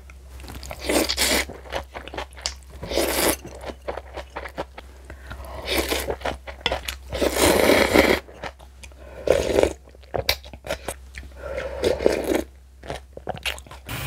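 Close-miked eating of spicy kimchi: a series of crunchy bites and chewing, coming in bursts with short pauses between them.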